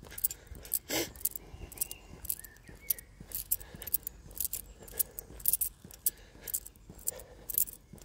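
Walking footsteps crunching on a dry, hard-packed dirt path, about two steps a second.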